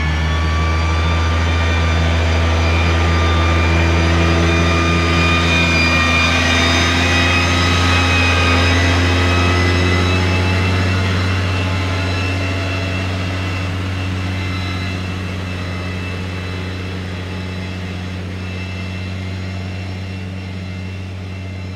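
A farm tractor's diesel engine runs steadily under load as it tows a stuck van out of mud on a strap, with a high whine above the deep engine note. The sound eases off slowly in the second half.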